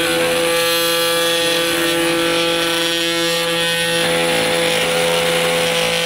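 Festool Vecturo OSC 18 cordless oscillating multi-tool running on low speed with its blade plunge-cutting into a solid oak board: a steady, even buzz that holds level throughout.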